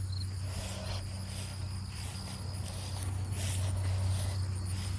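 Crickets or other insects trilling steadily, with short rustles of plants being handled over a steady low hum.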